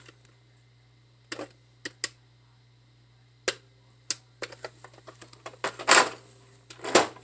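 Handling noise close to the microphone: a few separate clicks and taps, then a busier run of small taps and rustles with two louder knocks near the end.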